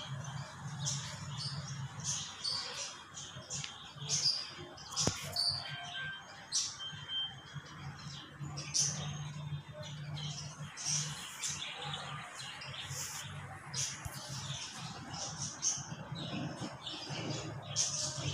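Small birds chirping over and over in short, high calls, over a low hum.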